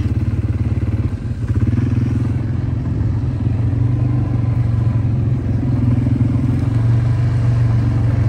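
Quad bike engine running steadily while riding, with a brief dip in loudness about a second in.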